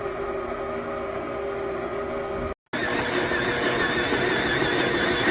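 Electric stand mixer's motor running steadily with a whine. About two and a half seconds in it cuts out abruptly and resumes at a higher pitch, as at a faster speed setting.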